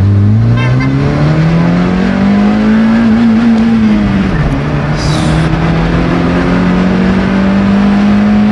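A Honda Civic's four-cylinder VTEC petrol engine at full throttle from a standstill, revving hard through first gear with the surge the driver puts down to VTEC. The engine note climbs steeply for about three seconds, drops at a gear change a little past four seconds in, then climbs again more slowly.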